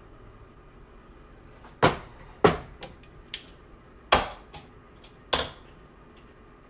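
Four loud, sharp knocks a second or so apart, with a few lighter clicks between: kitchen clatter of things being knocked or set down on a hard surface.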